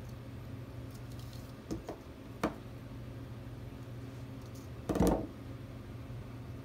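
Handling noises of fine craft wire and wire cutters on a tabletop: a few small clicks, a sharp snap about two and a half seconds in, and a louder knock about five seconds in, over a steady low hum.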